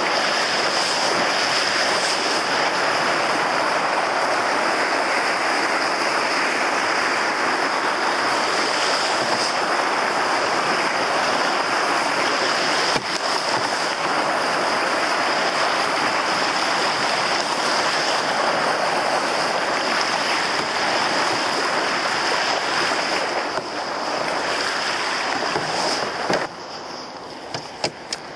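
Rushing, breaking water of a river playwave churning around an open canoe as it surfs, a steady loud wash. Near the end the rush drops off as the canoe comes off the wave into calmer water.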